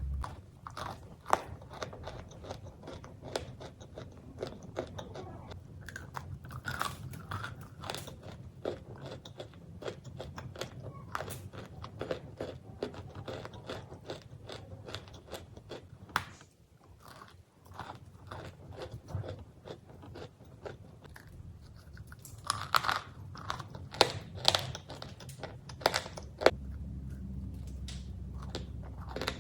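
Close-up biting and chewing of crunchy cookies: irregular sharp crackles and crunches, easing off briefly about midway, then a denser, louder run of crunches near the end.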